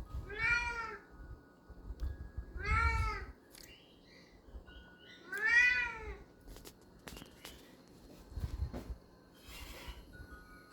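A domestic cat meowing three times, a couple of seconds apart, each call drawn out and rising then falling in pitch. A few faint clicks follow in the second half.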